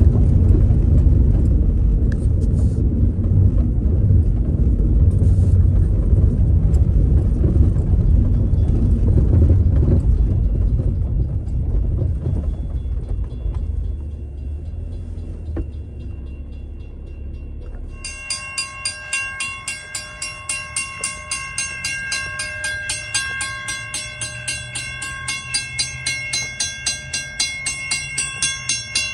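Low rumble of a car driving slowly over gravel, heard from inside the cabin, fading out about halfway through. From about two-thirds in, a railroad crossing warning bell rings steadily at about two strokes a second, the crossing signal active with its gate stuck down.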